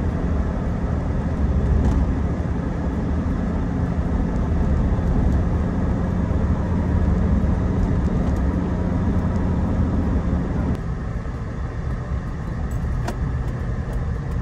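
Engine and road noise of a small manual-gearbox 4x4 on the move, heard from inside the cabin. The low engine hum drops and quietens about eleven seconds in.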